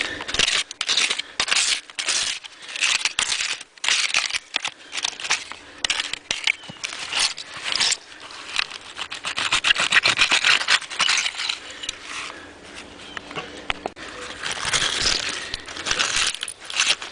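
A digging tool scraping and crunching through a privy hole packed with broken glass bottles: rapid irregular scrapes and glassy clinks, coming and going in spells.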